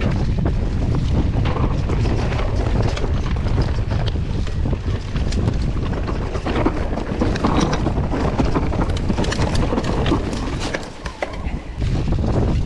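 Mountain bike descending a dirt trail at speed: wind buffets the microphone over a steady rumble of tyres on dirt, with frequent sharp clicks and rattles from the bike and loose stones. The wind noise eases briefly near the end.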